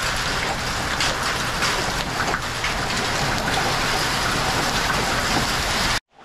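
Marble-sized hail and heavy rain hitting a metal roof: a dense, steady clatter of many small impacts, cut off suddenly near the end.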